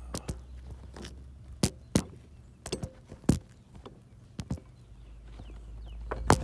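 Scattered sharp clicks and light knocks of hands handling things, about half a dozen, the loudest about three seconds in, over a low steady hum.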